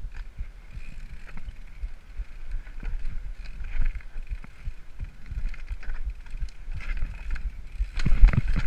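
Mountain bike rattling and knocking as it rolls down a rocky trail, the frame and parts jolting over stones in quick irregular clatters, with a steady low rumble of wind on the helmet camera's microphone. A heavier burst of knocks comes near the end.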